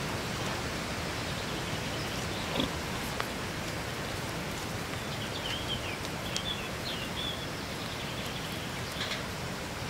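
Outdoor farmyard ambience: a steady noisy hiss, a couple of soft clicks, and faint short high chirps about halfway through.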